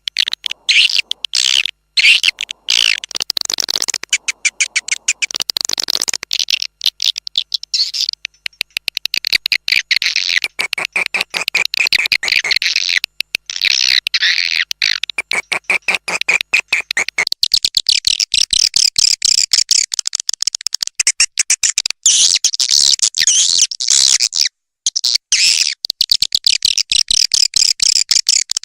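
Swiftlet calling-sound lure track for swiftlet farming: dense, rapid, high-pitched twittering chirps of swiftlets, broken by brief pauses.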